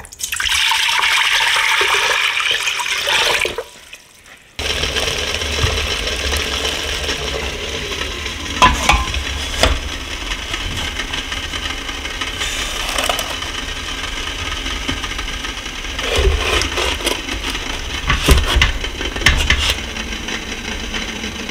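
Water poured in a stream into a stainless steel steamer pot for about three seconds. After a short pause, water boiling hard on high heat under a bamboo-cloth-lined steamer basket gives a steady bubbling hiss with a low rumble, broken by a few knocks.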